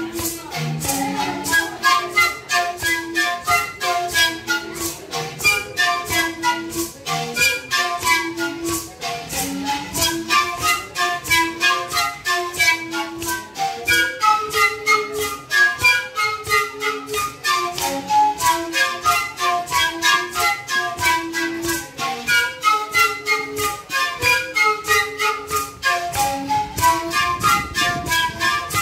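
Guna cane panpipes playing a short repeating melody over a steady rhythm of gourd maracas shaken by the dancers.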